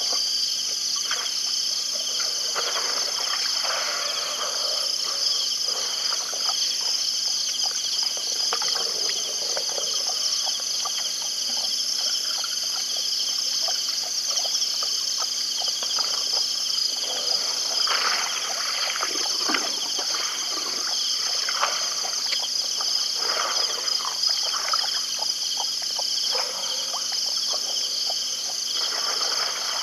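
Steady chorus of night insects such as crickets, a continuous high trilling in several pitched bands. Scattered short, softer sounds come and go beneath it, most of them in the second half.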